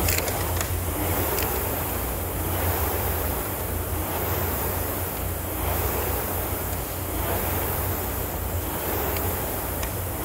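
Concept2 air rower's fan flywheel whooshing under hard rowing, swelling with each drive stroke and easing on the recovery, over a steady low hum.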